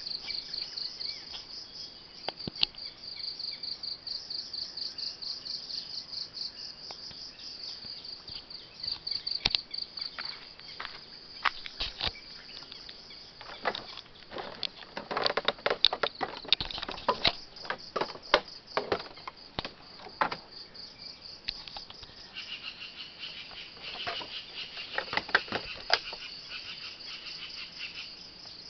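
Insects chirping in a fast, steady pulsing trill, joined by a second, lower-pitched insect trill about three quarters of the way through. Irregular sharp clicks and taps come through in the middle stretch.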